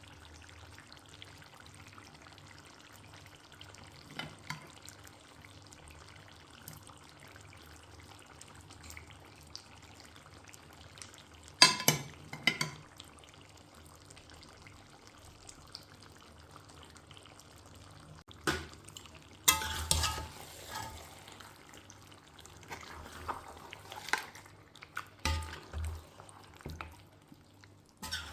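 Food frying in a pan with a faint steady sizzle, and a spoon clanking and scraping against the pan in separate bursts. The loudest clatters come about twelve and twenty seconds in.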